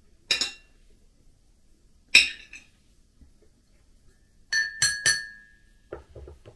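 Metal cutlery clinking against a ceramic mug and plate. There are two single sharp clinks, then three quick ringing clinks about four and a half to five seconds in, as a spoon knocks the mug, followed by a few softer taps.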